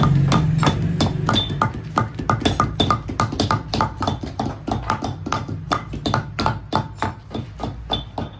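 Rapid, steady hammering of a metal hand tool on leather laid on a stone block: several sharp taps a second, each with a short metallic ping, fading gradually.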